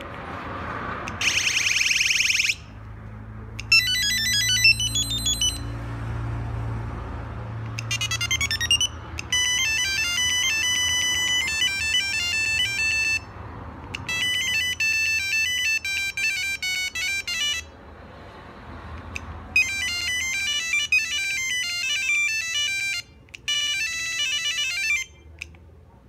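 Sony Ericsson T100 mobile phone playing its built-in ringtone melodies through its small speaker. About half a dozen short, high beeping tunes play one after another, each cut off after a few seconds as the next one in the list is previewed.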